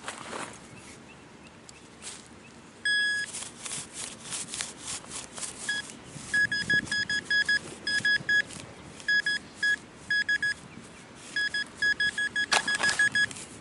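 Metal-detecting pinpointer beeping at one steady high pitch as it closes on a buried target: a single longer beep about three seconds in, then strings of rapid beeps. Scraping and rustling noises come between the beeps.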